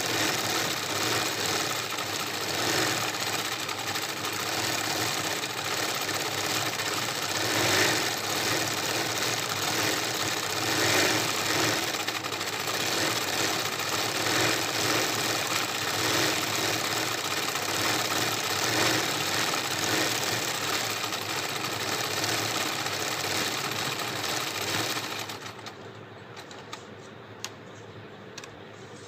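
Sewing machine stitching fast and steadily as fabric in a wooden hoop is moved under the needle for free-motion embroidery. It stops about 25 seconds in, leaving a few faint clicks.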